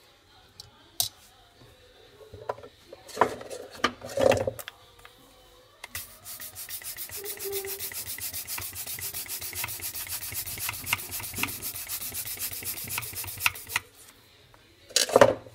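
Rapid, even scraping strokes, about seven a second, for roughly eight seconds, with a few loud handling knocks before them and one near the end.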